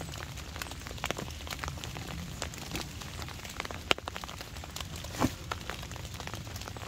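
Rain falling on a canvas tarp: a steady run of small, irregular taps, with a sharper tap about four seconds in.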